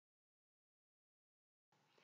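Silence: the soundtrack is muted.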